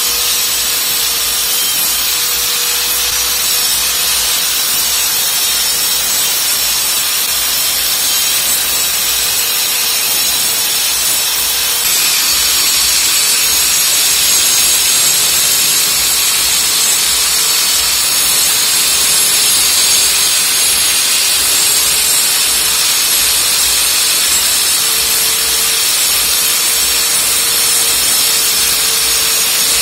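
Angle grinder with a cutting disc running steadily while cutting a groove into a plaster wall, a constant motor whine under a gritty hiss of the disc in the wall. It gets a little louder about twelve seconds in.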